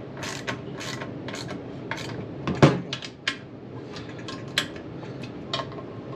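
Hand tools and steel bolts clinking and tapping against a transmission case while the case bolts are run down, with one sharper clank about two and a half seconds in.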